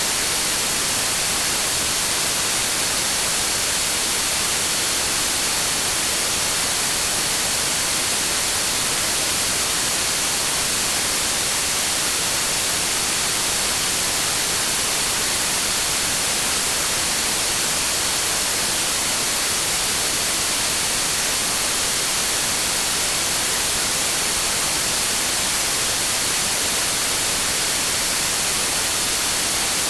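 Steady synthetic green noise: an even, unbroken hiss, brightest in the high frequencies, with a faint steady high tone running under it.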